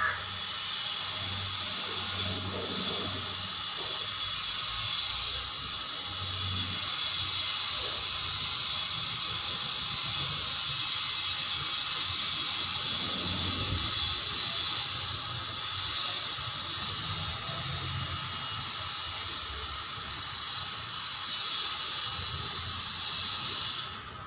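A steady high-pitched hiss made of several fixed whining tones, unchanging throughout, with a faint low hum coming and going underneath.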